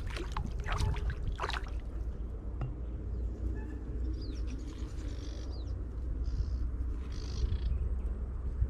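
A hooked fish splashing at the water surface, a quick series of sharp splashes in the first second and a half. After that, faint high bird-like chirps come and go over a steady low rumble.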